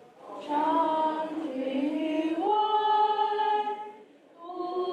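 Unaccompanied singing in long held notes, the pitch stepping up about halfway through. The singing breaks off briefly near the end, then starts again.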